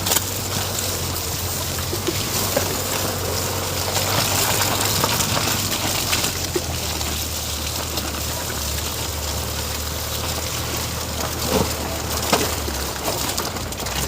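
Ford EcoSport driving on a rough off-road track: a steady low engine drone under a constant rushing hiss, with a couple of short knocks near the end.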